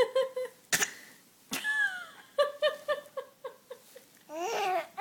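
4.5-month-old baby's 'coughing talk': two sharp coughs about a second apart, then a falling squeal and a quick run of short throaty grunts at about four a second, and a longer vocal sound near the end.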